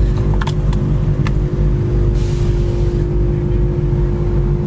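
A car engine running steadily with a low drone. There are a few light clicks about half a second to a second in, and a brief hiss a little after two seconds.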